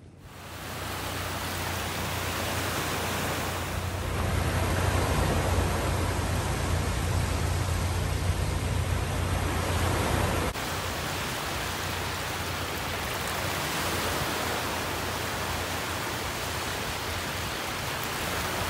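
Small waves washing onto a sandy beach: a steady rush of surf with wind rumbling on the microphone. It jumps louder about four seconds in and drops abruptly about ten seconds in.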